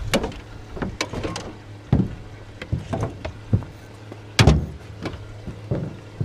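Irregular knocks and thumps on a jon boat, about ten, the loudest about four and a half seconds in, over a steady low hum.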